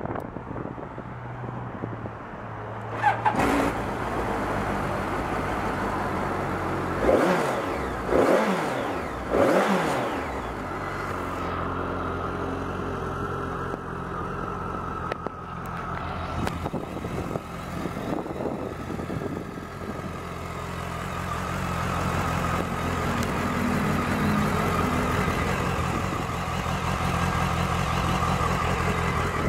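BMW K1200 motorcycle's inline-four engine idling, revved briefly four times in the first ten seconds, then idling steadily.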